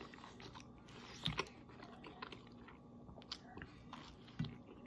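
Faint chewing and biting of pesto pasta eaten face-first from a plate without hands, with a few small clicks, a more noticeable one about a second in and another near the end.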